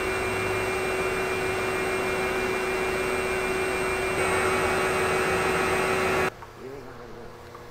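Steady drone of a woodshop machine running at constant speed, an even whir with a single steady tone in it, which cuts off abruptly about six seconds in.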